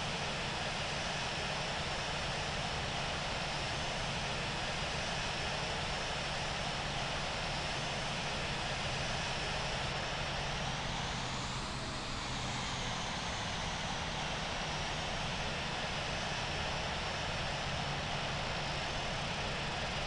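Boeing 787 jet engines running steadily with a high whine, the whine rising and falling once about halfway through.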